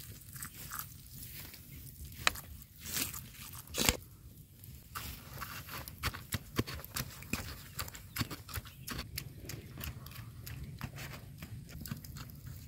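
A wooden pestle pounding chilies and garlic in a clay mortar. There are a couple of separate knocks, then from about five seconds in a quick, steady run of knocks.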